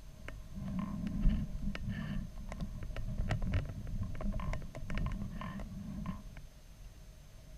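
Low rumbling with a run of sharp clicks, knocks and short creaks for about five seconds, from the balloon payload's camera box jostling in flight, over a faint steady electronic whine.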